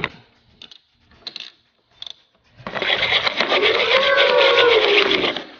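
Toy kitchen stove's cooking sound: a dense, fast rattle with a wavering tone under it, starting a little past halfway and lasting about three seconds, as the toy donut cooks in the pan. A few light plastic clicks come before it.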